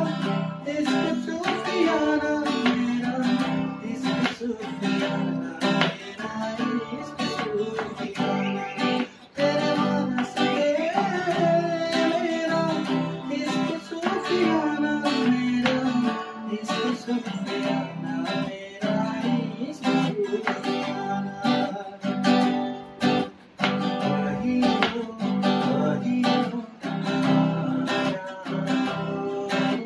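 A man sings while strumming a guitar, playing chords in a steady strumming rhythm under a sung melody.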